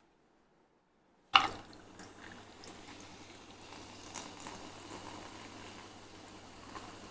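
Coca-Cola being poured from a can over ice into a glass, with a steady fizzing pour and small ticks of ice. It starts with a sharp pop about a second in as the can is opened.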